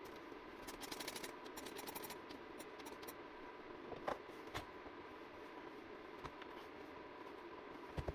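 Faint clicking, scraping and a few light knocks of small objects being handled, over a steady low hum. A quick run of clicks comes about a second in, and short knocks come about four seconds in and near the end.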